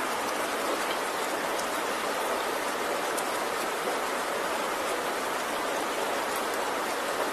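Steady rain falling, a dense even hiss with faint drop ticks here and there.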